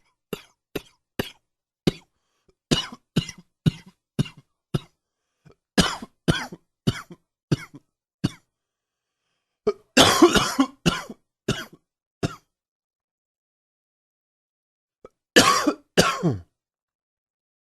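A man coughing over and over, which the uploader puts down to allergies. There are quick runs of short single coughs for about the first eight seconds, then a longer fit of coughing about ten seconds in and a few single coughs after it. Two last coughs come near the end.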